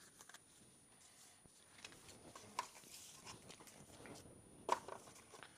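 Faint handling sounds of a phone charger and its packaging: light rustles and small plastic clicks, with one sharper click near the end.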